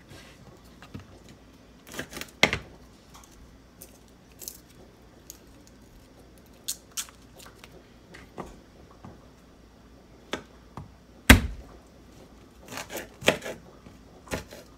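Knife and hands working on a wooden cutting board: irregular clicks, taps and knocks as food is peeled and cut, with one louder knock about eleven seconds in.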